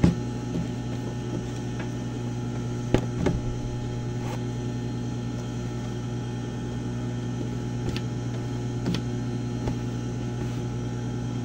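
Steady electrical hum, with a few soft knocks and cloth rustles as folded trousers are handled on a sewing-machine table.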